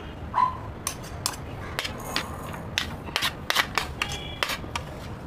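Steel tumbler clinking and knocking against a plate and a bowl as grated raw mango is scooped up and tipped out, a string of irregular sharp clicks.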